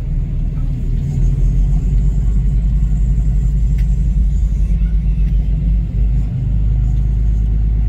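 Steady low rumble of a tour boat under way: its engine running while it cruises, with a fluttering, buffeting quality from wind on the microphone.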